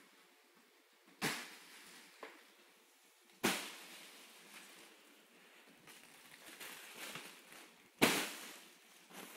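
A baby's hand slapping a large balloon: three sharp smacks, about a second in, about three and a half seconds in and near the end, with a lighter hit between the first two, each dying away over about half a second.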